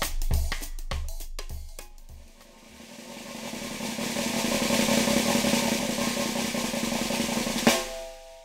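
Background music: a drum beat that dies away about two seconds in, then a drum roll building up and ending on a hit near the end.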